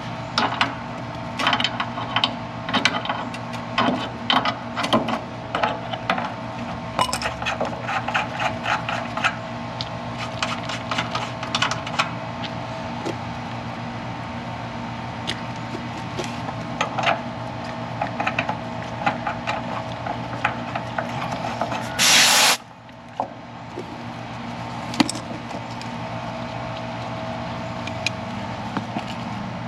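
Refrigerant manifold gauge hoses being handled and fitted to an air conditioner's service ports: repeated clicks and metal clatter for the first dozen seconds. About 22 seconds in comes one sharp hiss of refrigerant lasting about half a second, as a hose coupler opens onto a port. A steady hum runs underneath.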